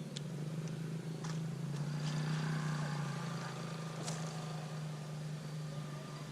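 A steady low engine hum, like a motor running without change, with a few faint clicks and high chirps over it.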